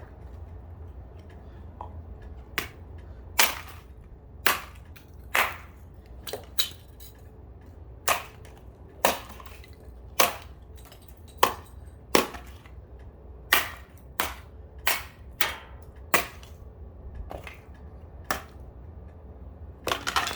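An iHome alarm clock radio that will no longer turn on after a salt-water soaking, being struck hard again and again. About twenty sharp blows come roughly one a second, starting a couple of seconds in.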